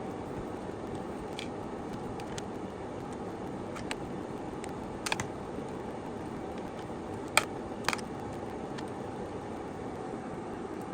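Steady low hum or room noise with a few short, sharp clicks: a quick double click about halfway through, then two more, the loudest about two-thirds of the way in.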